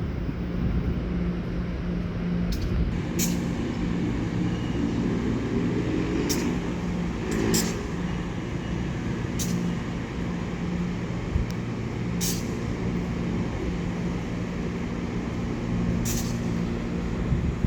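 Electric commuter train at a station: a steady low hum, with a pitched motor whine rising in the middle and short sharp hisses of air every few seconds.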